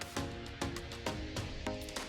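Music with a steady beat: sharp percussive strikes about twice a second over held pitched notes.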